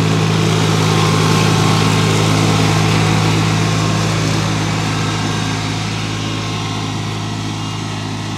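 LS MT125 sub-compact tractor's three-cylinder diesel engine running steadily at about 2000 rpm with the mid PTO engaged, driving the 60-inch mid mower deck's blades through grass. The steady engine hum and blade noise fade gently over the last few seconds as the tractor moves away.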